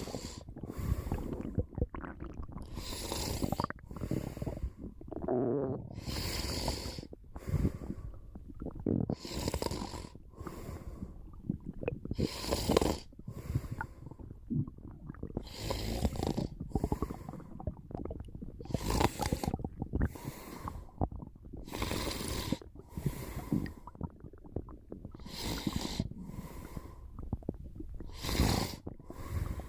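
A sleeping person snoring, an airy breath in and out about every three seconds, with low stomach rumbling underneath.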